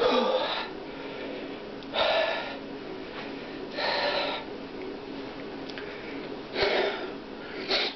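A man breathing hard through forceful exhalations while straining to bend a wrench by hand. There are five loud breaths about every two seconds, the first with a short grunt.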